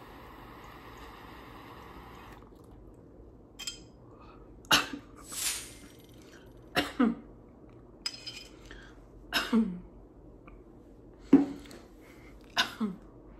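A woman draws on a small glass water pipe for about two and a half seconds, a steady hiss. Then comes a series of about five loud coughing fits, each dropping in pitch, from inhaling the smoke.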